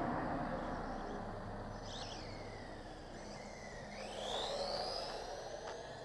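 Traffic on a residential street heard from road level: noise of a passing vehicle fades at the start, then swells again as a car passes about four seconds in. Between the two, a high whistle falls and then rises.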